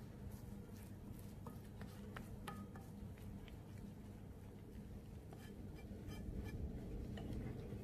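Hand whisk stirring flour into a runny egg-and-condensed-milk batter in a glass bowl: faint scattered ticks and soft patter over a low hum, a little louder near the end.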